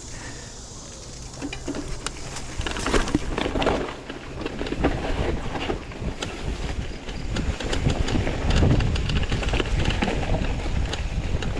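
Mountain bike rattling over rough trail with many sharp knocks and clicks, and wind on the microphone.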